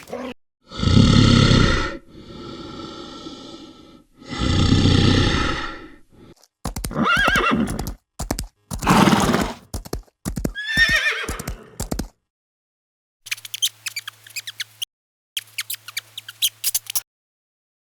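Horses neighing and whinnying in a series of separate loud calls, some rising and falling in pitch. Near the end there is a rapid clatter of clicks.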